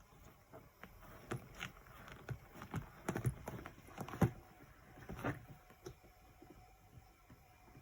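A small pet animal gnawing and scrabbling at something inside a backpack: irregular small clicks and scrapes, with a few louder clicks around the middle.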